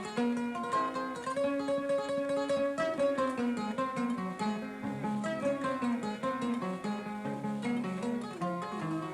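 Kora, the West African 21-string harp-lute, played solo: a rapid flow of plucked melody notes over low bass notes.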